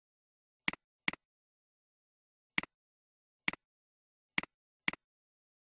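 Computer mouse button clicks, six in all, each a sharp press-and-release click, the first two less than half a second apart.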